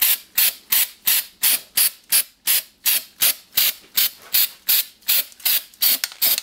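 Aerosol can of sand texture spray paint, spraying in short, even hissing bursts about three times a second.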